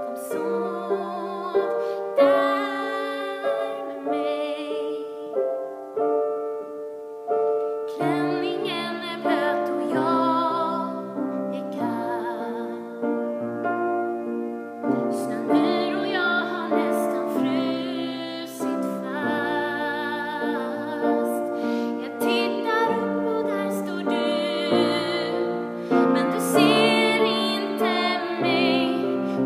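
A woman singing a slow song with vibrato in her held notes, accompanying herself on the piano.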